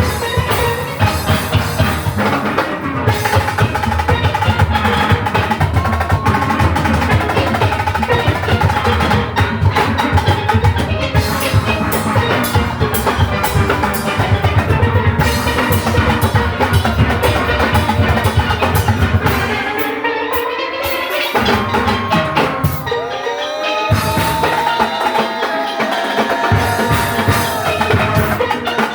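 Youth steel orchestra playing: steel pans over a drum kit and percussion. The drums and bass drop out for a moment about twenty seconds in, and again for a few seconds near the end, leaving the pans alone.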